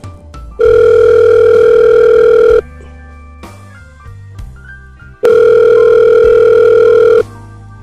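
Telephone ringing tone heard by a caller waiting for an answer: two long, steady tones of about two seconds each, with a pause of under three seconds between them.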